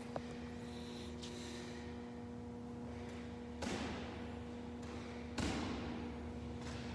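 Medicine ball wall-ball reps: two dull thuds about two seconds apart, roughly three and a half and five and a half seconds in, over a steady hum.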